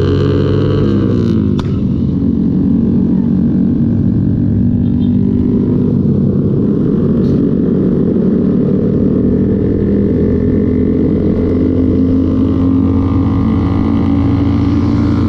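Motorcycle engine running while riding. Its pitch drops about a second in and then holds steady, with a short click soon after.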